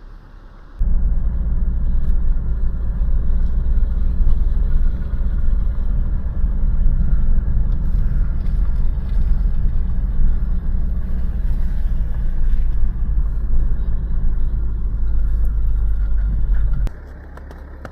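A loud, steady low rumble that starts abruptly about a second in and cuts off abruptly near the end.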